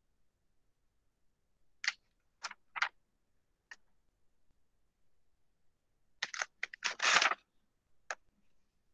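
Sharp clicks and taps from handling things at a desk: four scattered clicks, then a quick run of clicks and a short rustle about seven seconds in, and one last click.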